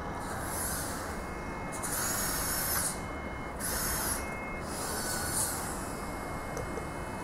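Small electric drive motor and gearbox of an HBX 2098B 1/24-scale mini RC rock crawler whining in four short bursts of throttle, each about a second long, its pitch rising and falling, over a steady hiss.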